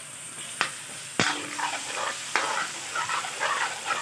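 Hot oil sizzling in a metal wok. About a second in, chopped pieces go in with a clack and the sizzling grows louder and crackly, while a metal spatula knocks and scrapes against the wok as it stirs.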